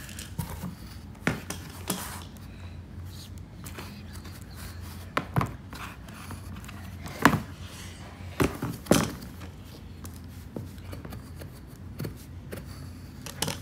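Thick sidewalk chalk scratching and tapping on a cardboard sheet as a child draws: scattered short knocks and scrapes, over a steady low hum.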